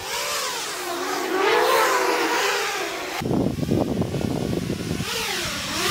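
FPV freestyle drone flying close by, its motors whining with the pitch rising and falling as the throttle changes. A rough, noisy rush joins about three seconds in.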